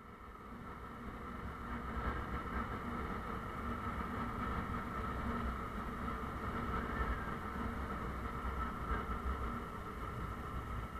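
Honda Bros motorcycle's single-cylinder engine running steadily while riding at moderate speed. The sound fades in over the first second or so.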